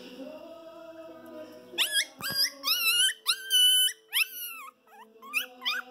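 Brown toy poodle puppy whimpering: a string of short, high-pitched squeals starting about two seconds in, each sliding up or down in pitch, with a brief pause and a few more near the end. Soft background music underneath.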